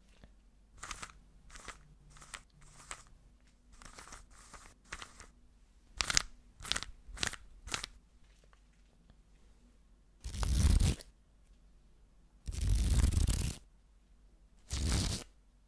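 Close-mic ASMR sounds imitating a Rubik's cube being twisted: a run of short, crisp clicks, a few a second. About ten seconds in come three louder, longer bursts of crackly noise, each about a second long.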